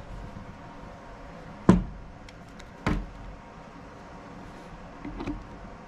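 Two sharp knocks about a second apart, then a few lighter clicks near the end: hard tools being handled on a wooden workbench while the cordless drill starter is readied, with no engine or drill running.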